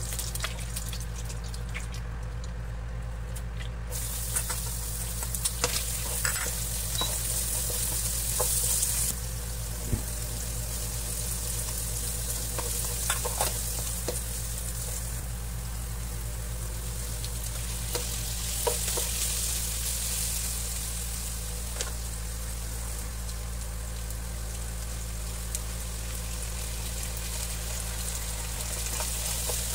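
Garlic, onion and chicken sizzling in hot oil in a nonstick wok, with a spatula scraping and clicking against the pan now and then. The sizzle grows louder for a few seconds twice, over a steady low hum.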